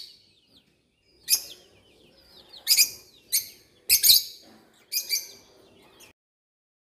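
Birds calling: a handful of loud, harsh high chirps with fainter twittering between them, cutting off suddenly near the end.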